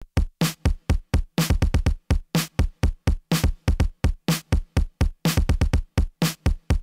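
Intro music: a drum beat playing on its own, sharp hits several times a second with short silences between them.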